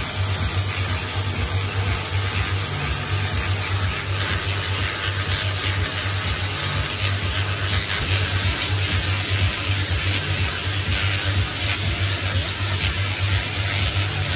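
Electric arcs from a Tesla coil discharging continuously: a steady, loud crackling hiss over a low, fluttering buzz.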